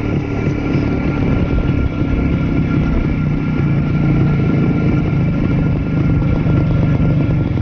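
ČZ 175 type 470 motorcycle's single-cylinder two-stroke engine running steadily at cruising speed, heard from the rider's seat while riding.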